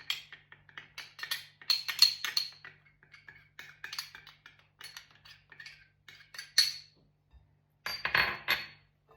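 Metal whisk clinking and scraping against the mixing bowl in quick, irregular strokes as flour is stirred into cupcake batter, with a short pause and then a closer flurry of clinks near the end.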